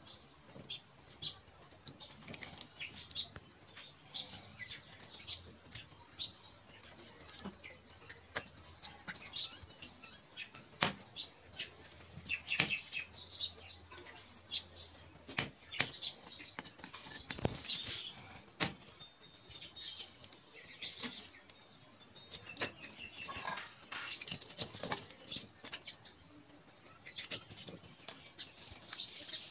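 A knife cutting and scraping fish pieces held against a brick, in irregular clicks, scrapes and knocks.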